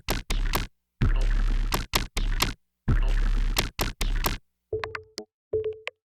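Drum rhythm: long, deep bass hits with sharp clicks, separated by complete silences. About four and a half seconds in, it changes to a lighter pattern of short, pitched knocks.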